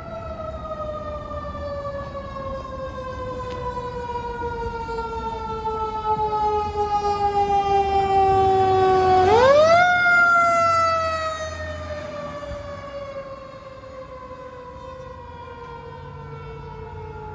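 Fire apparatus siren in a slow wail: its pitch sinks steadily for about nine seconds, sweeps back up in under a second, then sinks slowly again. It is loudest around the sweep up as the vehicle passes and fades as it moves away, with engine noise beneath.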